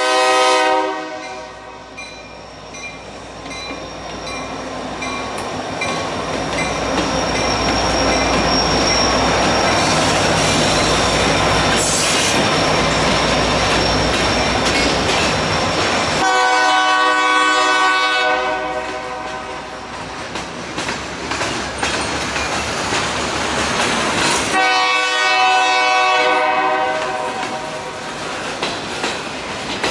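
A freight train's locomotive air horn blowing at a level crossing: a short end of one blast at the start, then a long blast about 16 seconds in and another about 25 seconds in. Between the blasts the train's running noise and rolling wheels grow louder and stay steady as it passes.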